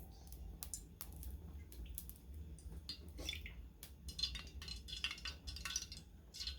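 Cooking oil going into a heating pot: scattered light clinks and clicks of the pot, with a patch of faint crackling about four seconds in.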